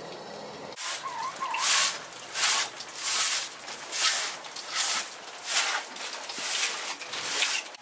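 Short straw hand broom swept briskly back and forth across a wooden plank bench, a dry swish with each stroke, about three strokes every two seconds, starting about a second in.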